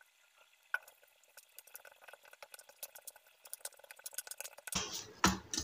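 Hands kneading wheat-flour dough in an aluminium bowl: faint sticky squelches and small clicks that grow louder and fuller near the end.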